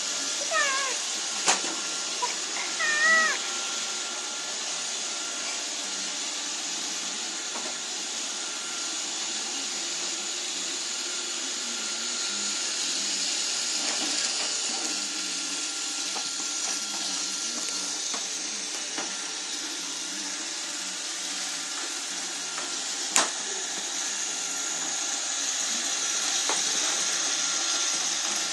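Robot vacuum cleaner running steadily: a hiss with a thin, steady whine and occasional sharp knocks as it bumps along. A few short, wavering high-pitched cries sound over it in the first few seconds.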